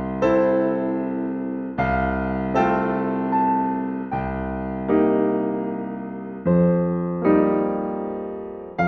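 Background piano music: slow chords, each struck and left to ring and fade, a new one every second or two.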